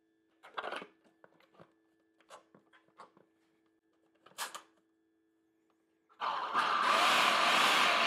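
Hard plastic clicks and knocks as the lid is set and locked onto a food processor bowl, then about six seconds in the food processor's motor starts and runs steadily, chopping fresh herbs, garlic and shallot.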